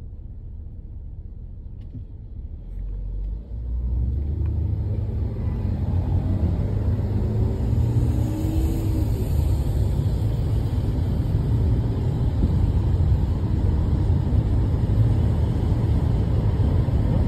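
Road noise inside a moving car's cabin: a low engine and tyre rumble that is quieter for the first few seconds, then grows louder about three to four seconds in as the car gets up to speed, and holds as a steady drone.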